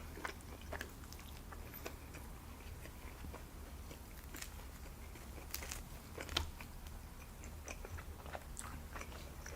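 Faint close-miked chewing: a person eating, with scattered small mouth clicks, one a little louder about six seconds in, over a faint steady low hum.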